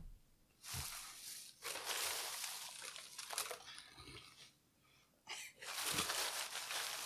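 Red crinkle-cut shredded packing fill rustling and crackling as it is pulled out of a cardboard box in handfuls and dug through, in three spells with short pauses between.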